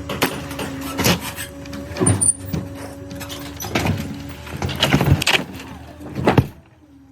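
An engine running steadily under repeated heavy knocks and bangs of beam-framing work, about one a second; the sound cuts off abruptly near the end.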